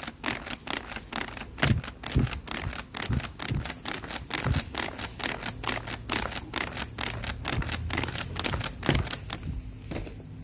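Lamb skewers grilling over hot charcoal: fat and juices crackle and pop on the coals in quick, irregular clicks, several a second, thinning out near the end. A few dull bumps are heard among them.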